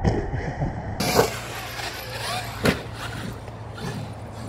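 Traxxas X-Maxx electric RC monster truck running at full throttle, its motor whining and wavering in pitch, with two sharp knocks, one a little over a second in and one near the middle, as it hits the ground from jumps.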